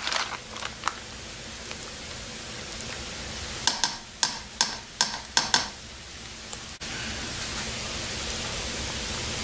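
Plastic bag of shredded cheese crinkling as the cheese is shaken out, then a cluster of short crinkles and taps a few seconds in, over a steady background hiss.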